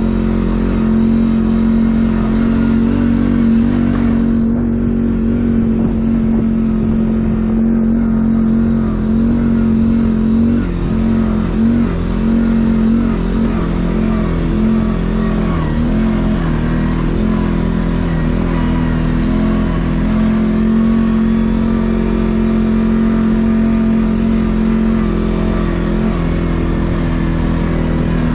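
ATV engine running at a steady riding pace on a rough dirt track, with its pitch rising and falling a little midway as the throttle varies.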